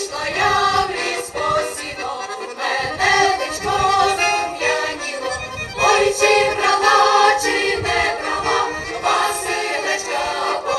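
Mixed Ukrainian folk choir of women's and men's voices singing a song together in harmony, with long held notes.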